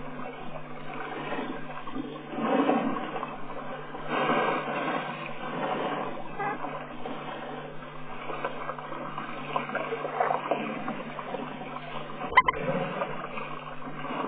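African elephants wading and drinking: water sloshing and splashing, swelling now and then, with a sharp knock near the end.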